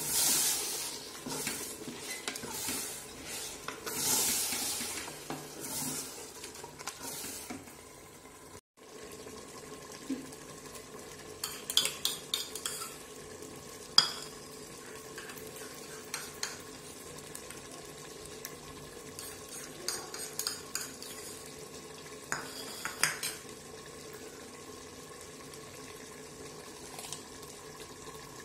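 A spoon stirring and scraping food that sizzles in a cooking pot, in repeated swells for the first several seconds. After a short break it goes quieter, with scattered sharp metal clinks of utensils against the pot.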